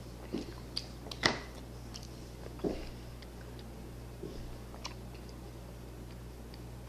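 A person chewing with the mouth open: a few wet clicks and smacks in the first three seconds, the sharpest just over a second in, and one more near five seconds. A low steady hum runs underneath.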